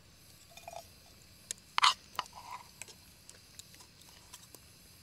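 Metal spoon clinking and scraping against a camp frying pan as cooked vegetables are served: a few light clicks, with one sharper clink about two seconds in.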